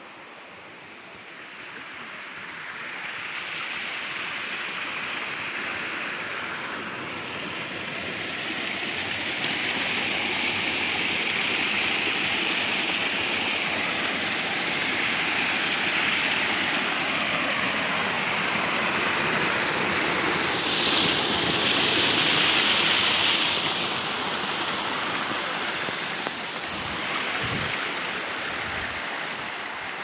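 Stream water rushing over bare rock slabs at the head of a waterfall: a steady rush that grows louder over the first ten seconds or so, is loudest a little past the middle, and eases off slightly near the end.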